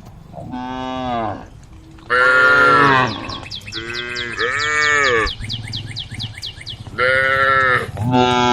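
Cows mooing, about six calls one after another, some overlapping, each rising and falling in pitch. A fast high chirping runs under the calls in the middle.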